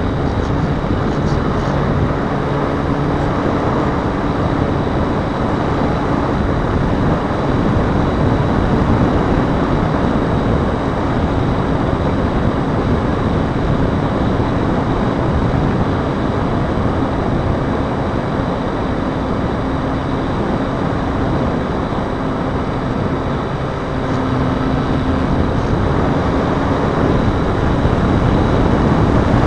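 Steady wind rush over a tiny onboard keychain camera's microphone as a Dynam Cessna 182 RC foam plane flies, with the even drone of its brushless electric motor and propeller underneath.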